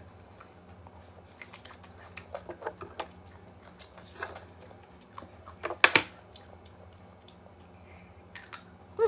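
Close-up crunchy chewing of raw, unripe green mango: a run of short crisp crunches, the loudest about six seconds in.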